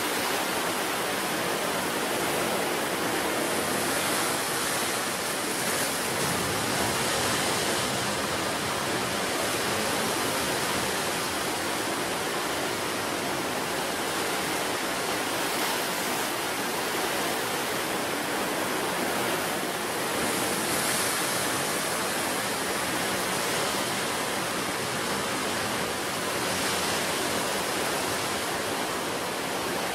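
Sea surf breaking and washing on a beach: a steady rushing that swells every several seconds as waves come in.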